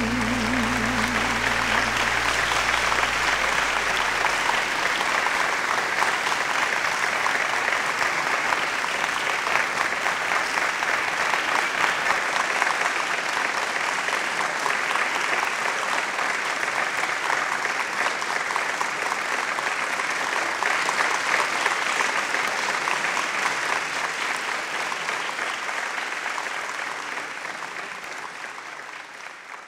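Audience applauding steadily, with the last low note of the song dying away in the first few seconds; the applause fades out near the end.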